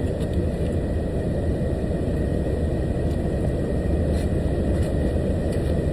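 Truck engine idling: a steady low rumble, heard from inside the cab.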